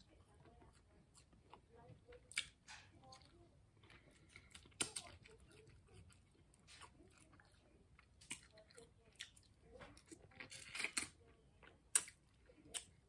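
A person eating snow crab legs close to the microphone: chewing and mouth smacks, with scattered sharp clicks and crackles as the crab meat is picked from the shells by hand. The loudest click comes near the end.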